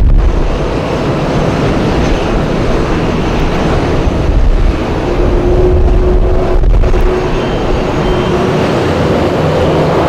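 Strong blizzard wind buffeting the microphone: a loud, gusting rumble, with a faint steady tone for a couple of seconds about halfway through.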